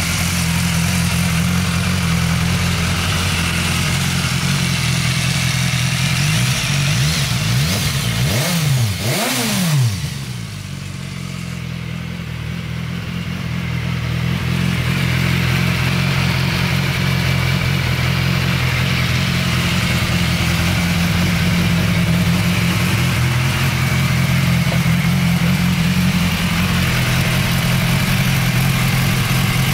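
BMW S1000XR's inline-four engine idling steadily, with a few quick throttle blips that rise and fall in pitch between about seven and ten seconds in.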